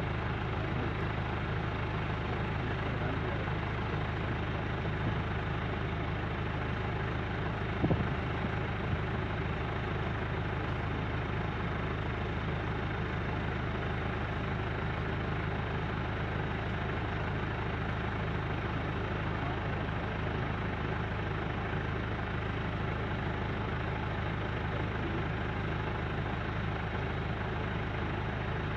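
An engine running steadily at idle, a constant low drone, with one brief knock about eight seconds in.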